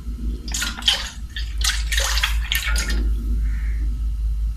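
Milk pouring from a carton into a steel pot, splashing for about two and a half seconds and then easing off, over a steady low hum.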